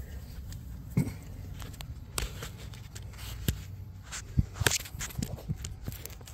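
Scattered light clicks and knocks of hands working around an engine's exposed rocker arms, the loudest a little past the middle, over a low steady hum.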